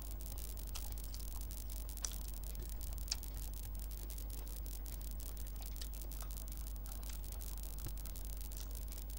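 Hand-eating sounds: fingers squishing and mixing rice and curry on a plate, and chewing, heard as scattered small wet clicks and ticks over a steady low hum. Two sharper clicks come about two seconds in and again about three seconds in.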